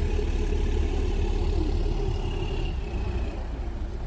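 An engine running steadily with a low rumble, easing off slightly near the end.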